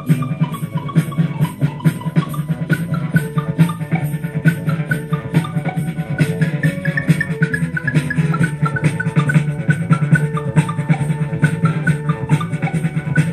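Music with drums and shaker-like percussion on a steady, fast beat.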